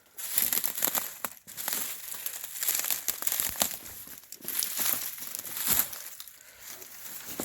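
Footsteps crunching and rustling through dry brush and dead vegetation, an irregular crackling and crinkling.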